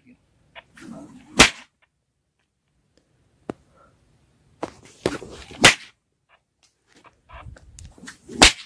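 A long whip (pecut) cracked three times, about four and then three seconds apart. Each sharp crack comes after a brief whoosh as the whip is swung.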